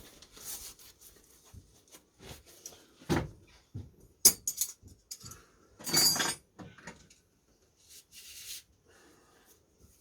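Tools and objects being handled in a workshop: a few separate knocks and metallic clatters with pauses between them. There is a dull thump about three seconds in, a sharp click just after four seconds, and a longer rattling clatter around six seconds.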